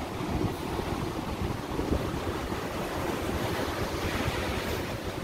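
Ocean surf washing on the beach, with wind buffeting the microphone in a steady low rumble.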